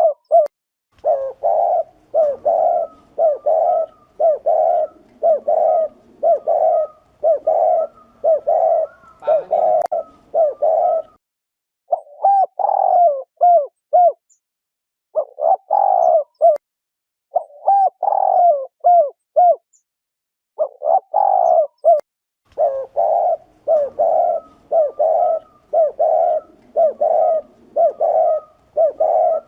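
Spotted dove giving its 'gù' bowing coo over and over, quick short coos at roughly one and a half to two a second. The runs break off twice briefly, about a third and two thirds of the way through.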